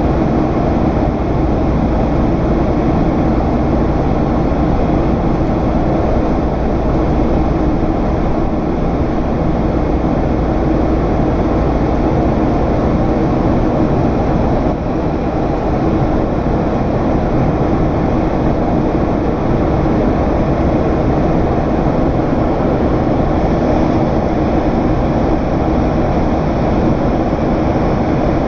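General Electric CF6 turbofan engines of a Boeing 767 running steadily in flight, heard inside the cabin as a constant deep rumble with a steady hum over it.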